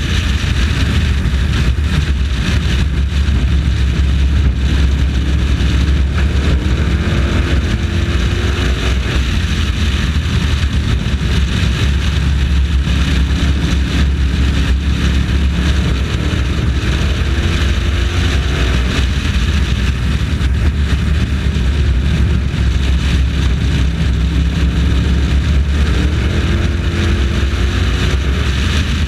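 Race truck engine running hard while lapping a short oval, heard from onboard. Its pitch climbs on each straightaway and drops away into the turns, about every ten seconds, over a steady low rumble.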